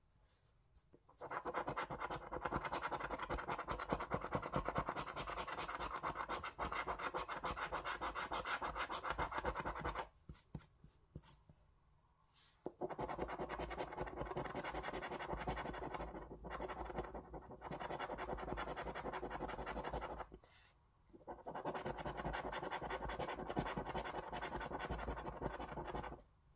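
A coin scratching the scratch-off coating from a paper lottery scratchcard, in three long stretches of quick back-and-forth strokes separated by short pauses.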